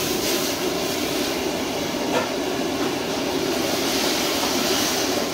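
Wok stir-frying over a high-flame gas burner: a steady roar and sizzle, with a faint clink of the metal ladle about two seconds in. It stops abruptly at the end.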